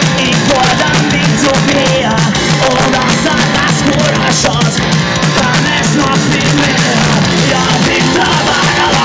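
Punk rock band playing live at full volume: distorted electric guitars, bass guitar and a drum kit driving a steady fast beat.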